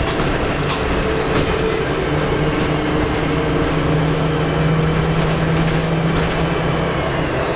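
Volvo B10M bus's turbocharged diesel engine running, heard from inside the bus: a steady engine note that grows stronger about halfway through.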